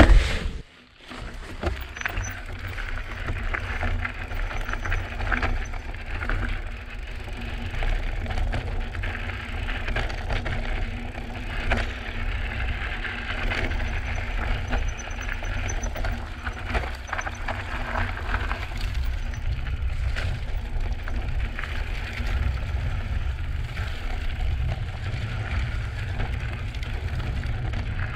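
Drop-bar mountain bike descending a rocky dirt trail: tyres rolling over gravel and rock with scattered rattles and clicks, and a steady low rush of wind on the microphone.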